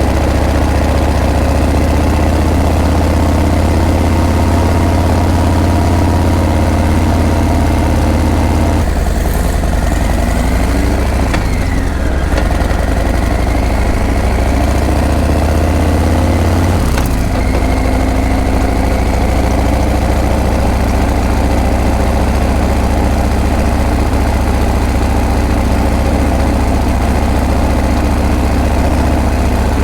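Harley-Davidson Breakout's V-twin engine and exhaust running steadily at low revs. Between about 9 and 17 seconds in, the pitch slides down and back up as the revs change, then it settles steady again.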